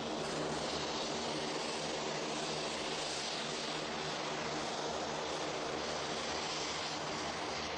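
Aircraft engines running steadily: a constant hiss over an even, low hum.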